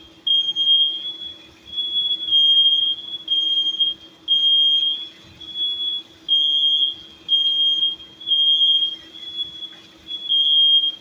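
Smoke alarm sounding: a loud, high-pitched electronic beep repeated about once a second without letting up.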